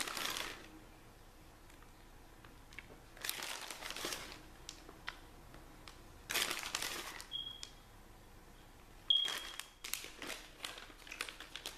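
Plastic bag of shredded cheese crinkling in short bursts as cheese is shaken out of it, four or five times with quieter pauses between and more rustling near the end.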